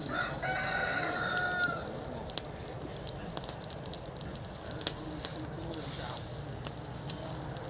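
A straw fire singeing a goat carcass, crackling with many sharp pops throughout. A rooster crows once near the start, one held call of about a second and a half.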